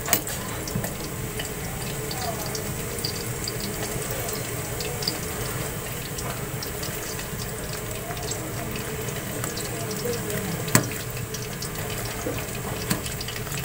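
Pot of clear mustard-greens soup simmering on a gas burner and stirred with a metal ladle: a steady watery bubbling hiss with scattered light clinks of the ladle against the enamel pot, and one sharper knock near the end.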